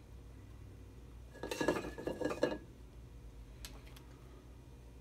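Two metal spoons clinking and scraping against each other and a stainless steel mixing bowl as soft cookie dough is scooped out: a quick run of clinks with a brief metallic ring about one and a half seconds in, and one faint click later.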